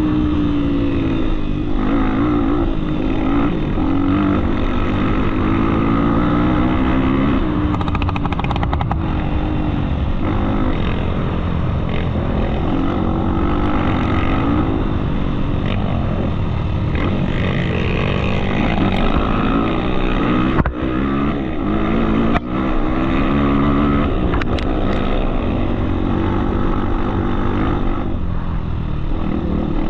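Off-road trail motorcycle engine running under way, its revs rising and falling as the throttle is worked.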